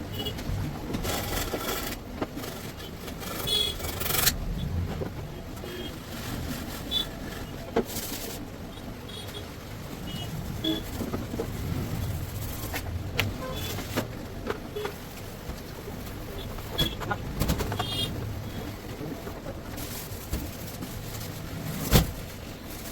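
Scattered clicks and knocks of hand tools and plastic body panels as a Honda Activa 6G scooter is dismantled, over a steady low rumble, with one loud sharp knock near the end.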